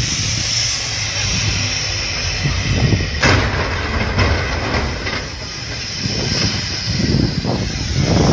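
Steady hiss of wind and the low rumble of vehicles on a snow-covered highway during a multi-vehicle pileup. About three seconds in there is a sharp crash-like bang, with a few weaker knocks after it as a truck piles into the wreck.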